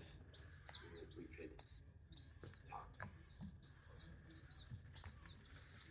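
Baby birds begging while being hand-fed: a series of short, high chirps, about two a second.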